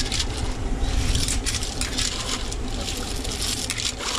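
A metal ladle stirring a pot of freshwater clams in broth, the shells clattering and clicking against each other and the pot in quick, irregular strokes.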